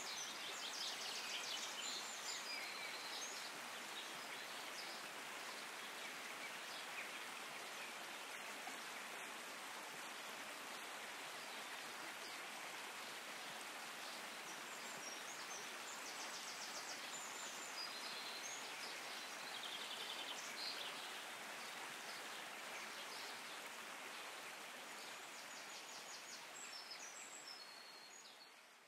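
Shallow rocky stream running with a steady rush of water. High chirping trills come in three short spells over it, and the sound fades out at the end.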